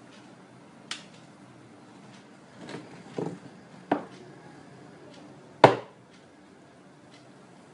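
A few scattered knocks and clacks of hard objects being handled, the loudest about three quarters of the way through.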